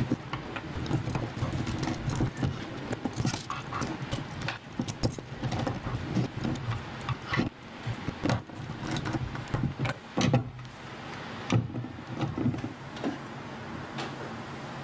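Screws being driven with a screwdriver into the plastic body plates of a hexapod robot kit, with the parts handled: irregular small clicks, rattles and knocks, a couple of sharper knocks about two-thirds of the way through.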